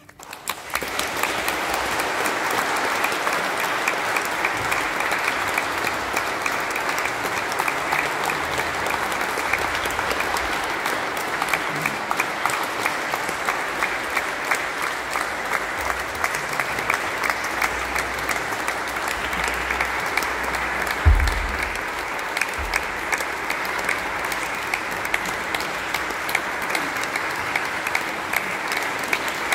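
Audience applause breaking out at the end of a song and continuing steadily. A single low thump sounds about two-thirds of the way through.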